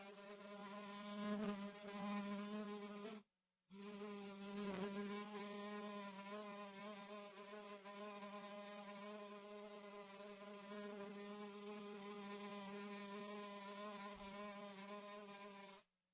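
Fly buzzing in flight, a steady low buzz. It cuts out for a moment about three seconds in, then resumes and stops just before the end.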